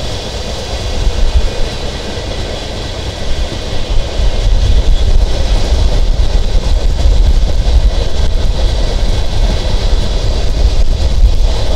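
Sundarban Express passenger train running along the track, heard from on board: a steady rumble of the moving carriage that grows louder about four seconds in.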